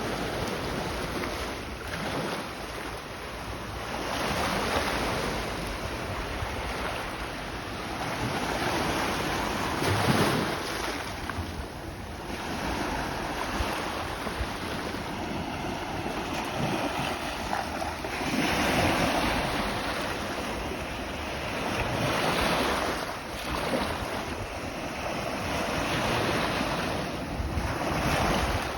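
Sea waves breaking and washing over a pebble beach: a noisy wash that swells and ebbs every few seconds, with wind buffeting the microphone.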